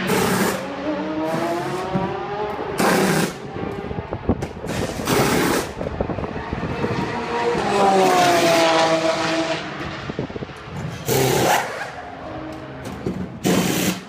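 Pneumatic wheel guns going in short bursts about every two to three seconds as the endurance prototype's wheels are changed. Engine notes of race cars rise and fall in pitch twice in the background.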